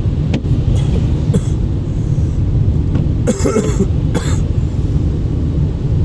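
A man coughs twice, about three seconds in, over the steady low rumble of a moving car's cabin.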